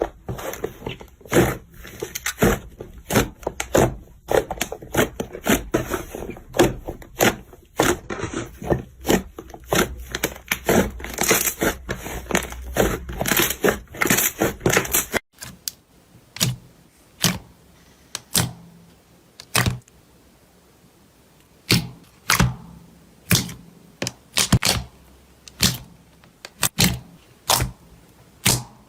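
Slime being pressed and stretched by hand, making a run of sharp, sticky clicks and pops. Over a steady hiss at first, the clicks come thick and fast; about halfway the hiss drops away, leaving separate pops one or two a second.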